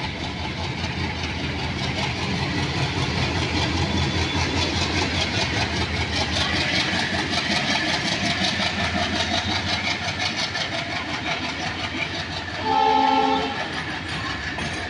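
Derated ALCO WDM-class diesel locomotive chugging heavily under load as it passes, its exhaust beating in a fast, steady rhythm, with loaded hopper wagons rolling behind. A short horn blast about thirteen seconds in is the loudest sound.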